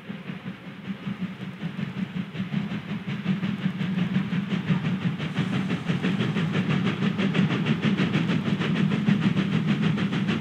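Two steam locomotives double-heading a train, their exhaust beats chuffing in a fast, even rhythm that grows steadily louder as they approach.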